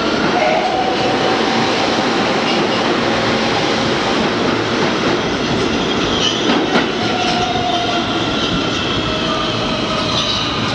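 R160B subway train with Siemens propulsion pulling out of the station past the platform: a loud, steady rush of steel wheels on rail, with faint whining tones over it. A few sharp clacks come about six and a half seconds in, and the last car passes near the end.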